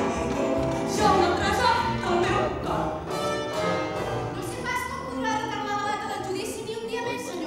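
A live orchestra playing a jazzy show tune, with singing over it.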